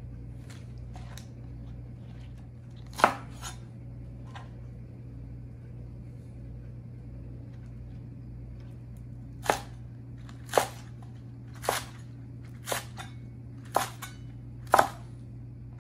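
Chinese cleaver chopping spring onions on a plastic cutting board. There is one sharp knock about three seconds in, then six chops about a second apart near the end.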